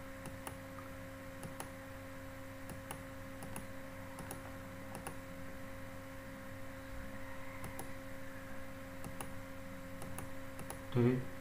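Computer mouse clicking a dozen or so times at uneven intervals, over a steady electrical hum.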